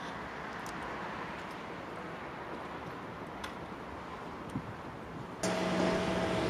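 Steady city background noise of traffic, with a few faint clicks. About five seconds in it jumps abruptly louder, and a steady low drone joins it.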